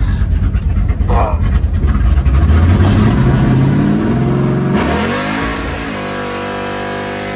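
Car engine accelerating, its pitch rising for about two seconds, then changing abruptly about five seconds in and settling into a steady drone at higher revs.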